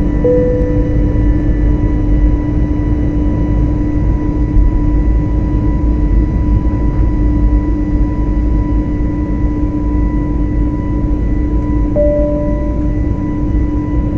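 Airliner cabin noise while climbing after takeoff: a loud, steady rumble of engine and air noise with a steady hum over it. Two short, faint tones sound, one just after the start and one near the end.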